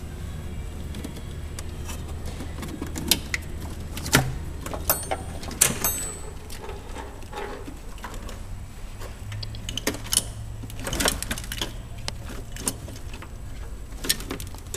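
A wrench and hand tools clicking and clinking on metal brake line fittings and wiring in an engine bay, in short irregular clusters, over a steady low hum.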